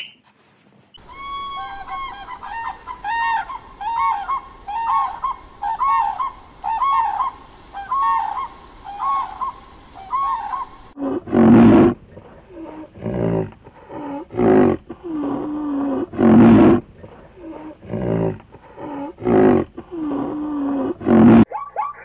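A run of high, rising-and-falling calls, about two a second, switching about eleven seconds in to loud, deep calls about once a second.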